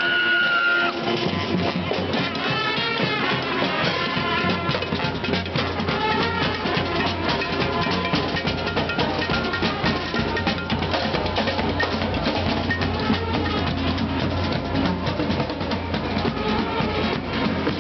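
Street parade band playing, led by its drums: snare and bass drum beating steadily, with some pitched instrument lines over the beat.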